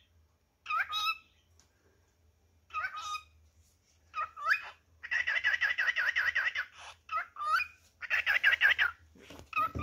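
Male cockatiel singing: a few short rising whistles, then a fast string of repeated warbled notes lasting about two seconds, more rising whistles, and another fast string near the end. The owner takes it for him calling to his mate.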